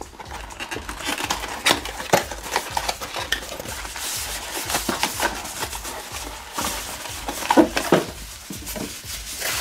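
Cardboard boxes scraping and knocking against each other and white paper packing rustling as packed items are lifted out of a shipping carton, with a couple of louder knocks near the end.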